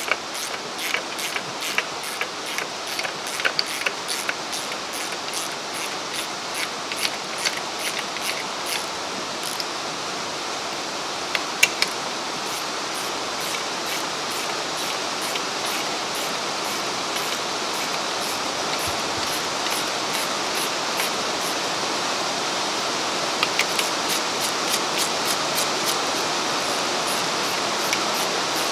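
Hand ratchet clicking in runs as it spins nuts down onto the studs of an aluminum strut-top leveling spacer, the clicks coming in a long run at first, a few about eleven seconds in, and another run near the end. A steady hiss sits underneath and grows a little louder partway through.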